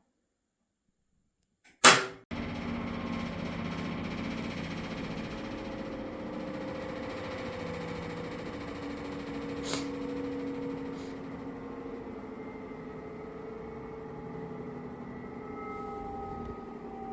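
Whirlpool Duet front-loading washing machine running, with a steady mechanical hum and several whining tones that slowly drift in pitch. The sound begins abruptly after a sharp click about two seconds in.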